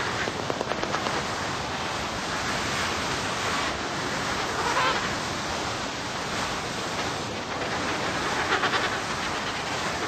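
Antarctic storm wind blowing steadily, a rushing noise of wind and driven snow that swells briefly about halfway through and again near the end.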